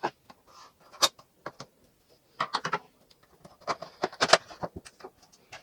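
Toy packaging being opened by hand: scattered sharp clicks and taps, with two short runs of quick crackling, one about two and a half seconds in and a louder one about four seconds in.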